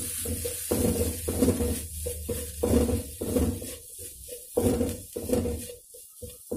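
Spatula stirring and scraping fried chapati pieces, egg and kurma around an aluminium kadai, in uneven strokes with short pauses, over a light sizzle.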